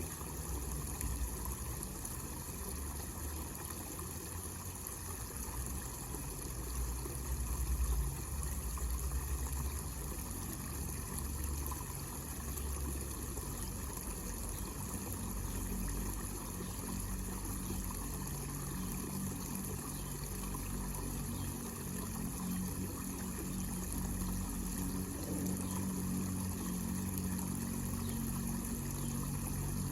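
Water trickling and splashing steadily down a small homemade waterfall into an artificial pond, with a low rumble underneath.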